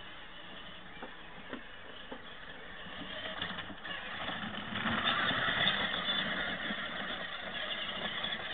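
Peg Perego Gaucho ride-on toy 4x4 driving over grass, its electric motors running. The sound grows louder as it passes close, about halfway through, then fades slightly.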